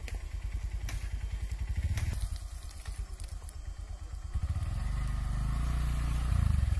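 Motorcycle engine running with an uneven low putter, then growing louder and steadier from about four and a half seconds in.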